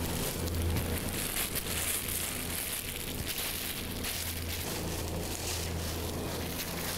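Thin plastic bags crinkling and rustling as they are handled and opened, over a steady low hum.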